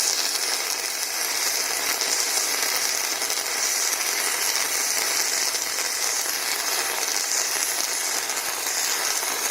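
Robotic MIG welding arc burning steadily, a continuous crackling hiss with no breaks.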